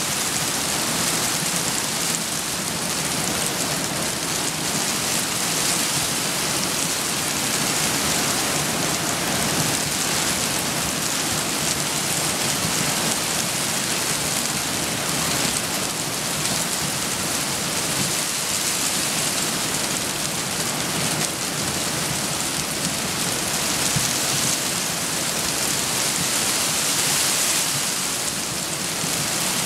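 Steady hiss of heavy rain, mixed with the rush of a stream in flood.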